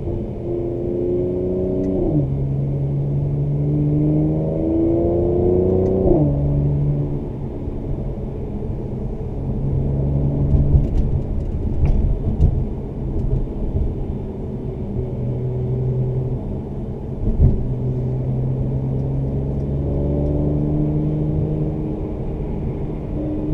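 2017 Mercedes-AMG C43's twin-turbo V6 and performance exhaust, heard from inside the cabin, pulling hard through two upshifts: the pitch climbs and drops at each shift in the first six seconds. It then settles into steadier running, with a few sharp exhaust pops through the middle and one louder pop a little past halfway.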